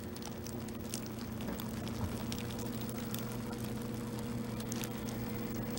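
Soup simmering in a crock pot: faint, irregular bubbling pops over a steady low hum.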